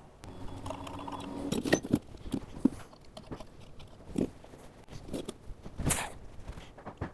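Handling noises: scattered light knocks, clicks and rustles from tools and metal parts being picked up and set down.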